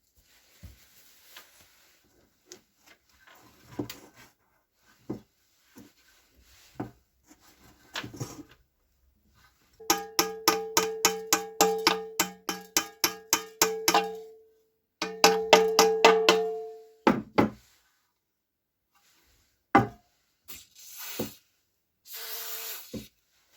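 A few scattered knocks and clatter, then two runs of rapid taps, about four a second, on a metal piece that rings with a steady tone between strikes. A short scraping noise comes near the end.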